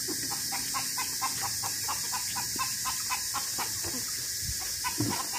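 An animal calling in a rapid, even run of short chirps, about six or seven a second, over a steady high hiss.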